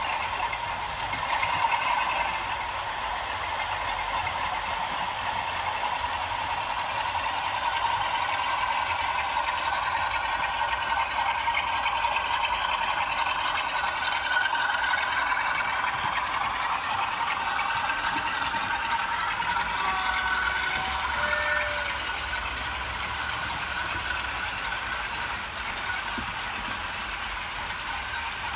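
Model OO-gauge train, a blue Class 47 diesel hauling a rake of coaches, running along the layout track with a steady mechanical running noise. A few short tones sound about twenty seconds in.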